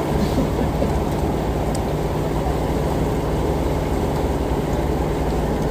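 Boat engine running steadily: a low, even drone.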